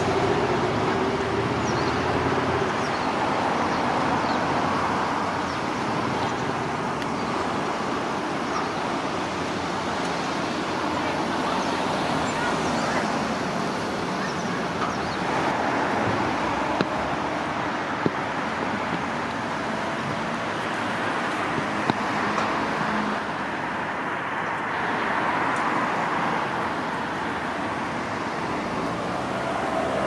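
Steady road traffic noise, swelling and fading slowly as vehicles pass, with a few brief sharp ticks in the middle.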